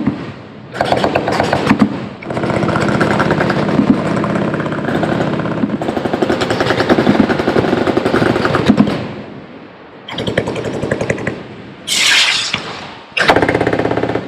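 Automatic machine-gun fire, several guns going at once in long overlapping strings. It breaks into shorter bursts over the last few seconds, with a sharp hissing rush among them.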